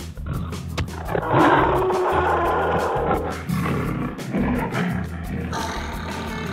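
A loud animal roar rises about a second in and trails off over a few seconds, over background music.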